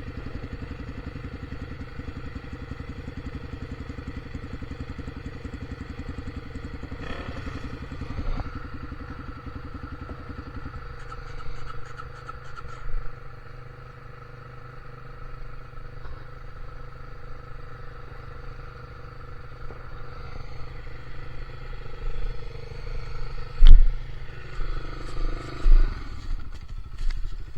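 A vehicle engine running at low revs, its even firing pulses plain for the first ten seconds or so and then fainter. Scattered knocks and clatter follow, the loudest a sharp knock a little before the end.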